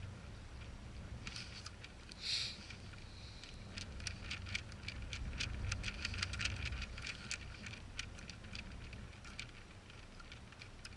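Rapid small plastic clicks and ticks from handling a mini drone and snapping its propellers onto the motor shafts, with a louder brief rustle early on and wind rumbling on the microphone.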